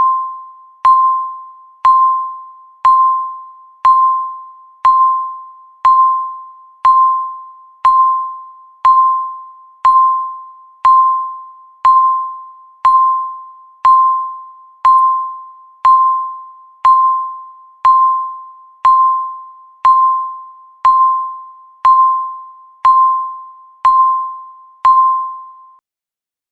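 Countdown timer's electronic beep: a single tone sounding once every second, each beep starting sharply and fading away before the next. The beeps stop near the end.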